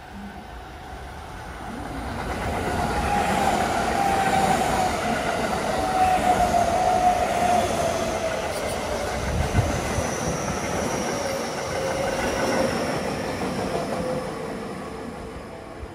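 A JR West 225 series and 223 series electric train, coupled together, passing through the station. Its running noise swells up, holds for several seconds and dies away, with a whine that slowly falls in pitch as the cars go by.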